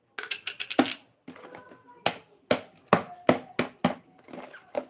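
A run of sharp, irregular taps and knocks, roughly two to three a second, as objects are handled close to the phone.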